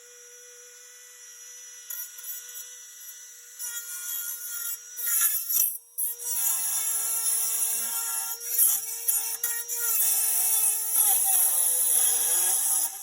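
Small high-speed cut-off wheel tool cutting through rusty steel. For the first few seconds it spins free with a steady high whine. From about six seconds in, a louder harsh grinding joins as the wheel bites the metal, and near the end the whine sags under the load.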